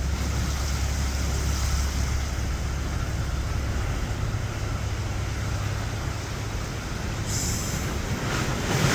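Low, steady rumble of an old fishing boat's engine passing through the inlet, over a haze of wind and water noise. The rumble weakens after about six seconds.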